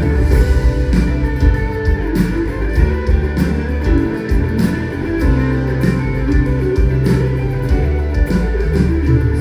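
Live band playing an instrumental passage of a pop song with no vocals, guitar leading over held bass notes and steady drum hits.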